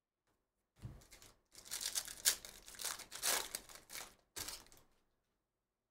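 A foil trading-card pack wrapper crinkling and tearing as it is ripped open by hand. It comes in several crackly bursts starting about a second in and stops about five seconds in.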